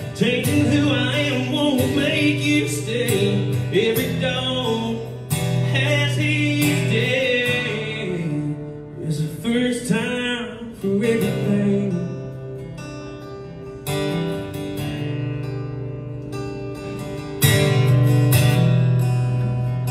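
A man singing a country song live over strummed acoustic guitar. The voice stops after about ten seconds and the guitar carries on alone, strumming harder near the end.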